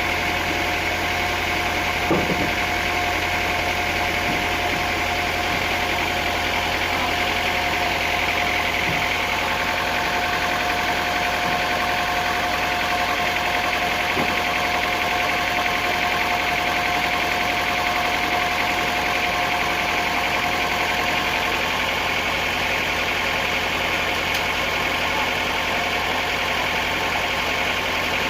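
Sawmill machinery running steadily, a constant engine-like hum with a held whine that stops about three quarters of the way through. A single knock about two seconds in.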